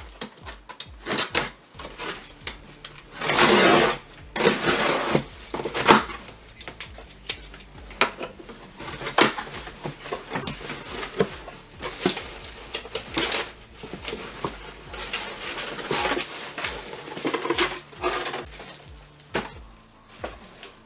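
Packaging being handled: scattered clicks, taps and knocks with bursts of rustling, the loudest rustle about three seconds in and lasting about a second.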